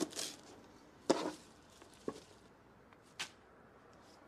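A kitchen knife cutting through coriander stalks and striking the chopping board: four or five separate cuts about a second apart, the sharpest about a second in.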